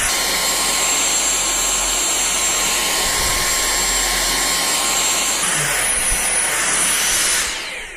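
Dyson V6 Animal cordless stick vacuum running while vacuuming carpet: a steady rush of air with a thin high motor whine. It switches off near the end and winds down.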